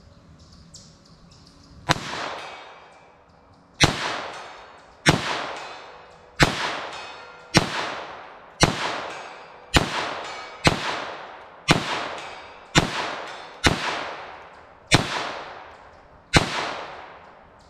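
A .22 LR semi-automatic pistol firing thirteen single shots at a steady pace of about one a second, starting about two seconds in. Each sharp crack is followed by a short echo trailing off through the woods.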